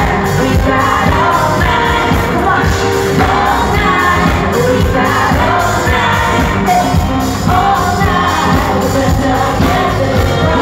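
Live pop-rock band playing through a stage PA, heard from the crowd: a lead vocalist sings over electric guitars, drums and keyboard in a steady, continuous passage.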